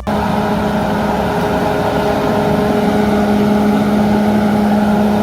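A machine hum like an engine running steadily at constant speed, with one strong low steady tone. It cuts in abruptly.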